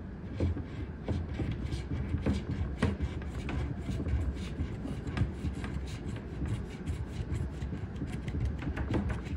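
A coin scratching the coating off a scratch-off lottery ticket, in many quick, uneven strokes.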